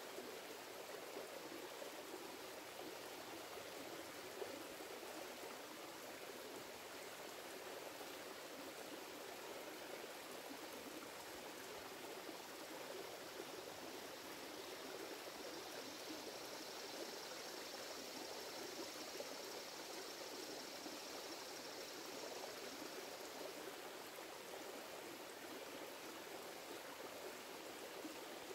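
Shallow rocky creek flowing steadily, a constant water sound. For several seconds in the middle a faint high hiss rises over it.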